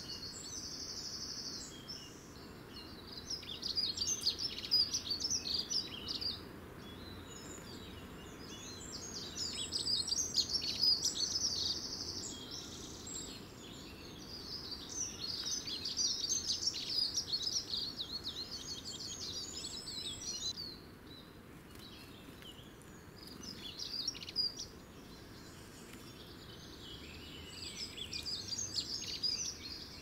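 Small songbirds singing: rapid, high-pitched warbling and trilled phrases, each a few seconds long, about five of them with short gaps between, over a faint steady low background noise.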